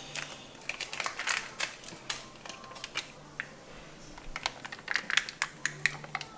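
Foil sachet of hot chocolate powder crinkling and crackling as it is handled, torn open and tipped into a glass mug. The crackles come in quick bunches in the first two seconds and again near the end.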